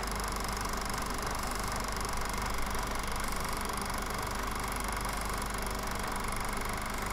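Film projector running: a steady mechanical whir and hum with hiss, unchanging throughout.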